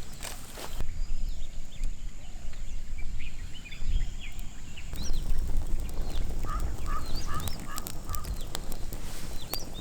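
Forest birds calling: many short chirps, and midway a run of about six evenly spaced notes at one pitch, about three a second. Scattered sharp clicks and a low rumble lie underneath.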